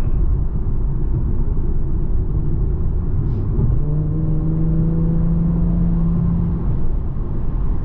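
Infiniti Q50 driving, with a steady low rumble of engine and road throughout. About halfway in, a clear engine note comes up and holds for a few seconds, its higher tones rising slowly as the car pulls, then fades back into the rumble.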